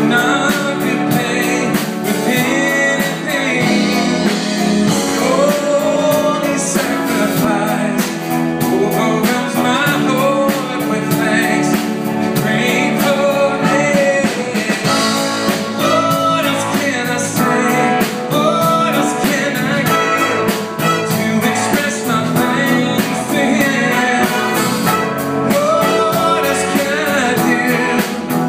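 Live worship band playing: singing over guitars and drums with a steady beat.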